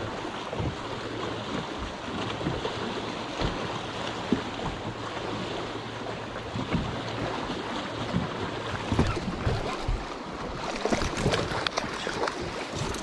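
Wind buffeting the microphone and choppy water slapping against a boat's hull, with scattered small knocks and clicks, more of them near the end.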